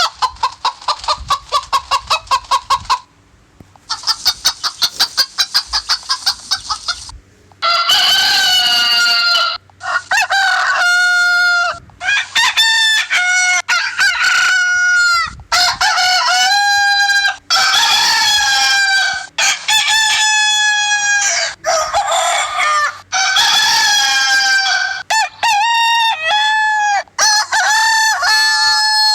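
Chickens clucking in quick, even pulses for the first several seconds, then roosters crowing one cock-a-doodle-doo after another with hardly a pause, some crows overlapping.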